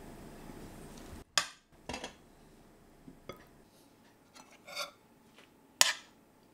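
Metal tongs and a spoon clinking and scraping against a stainless steel pan of braised ribs in sauce: a few separate sharp clinks, the loudest near the end.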